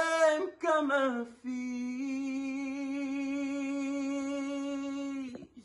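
A man singing unaccompanied: a few short sung phrases, then one long held note of about four seconds that stops shortly before the end.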